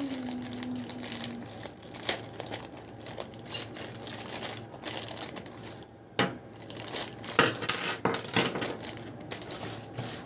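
Unpacking a small drill chuck kit: plastic packaging crinkling and small metal parts (chuck, key, handle, Allen key) clinking and clattering against each other and a hard surface, in irregular clicks and knocks that get busier in the second half.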